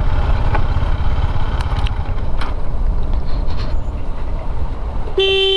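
Steady low rumble of a motorcycle on the move. About five seconds in, a vehicle horn starts one loud, steady note.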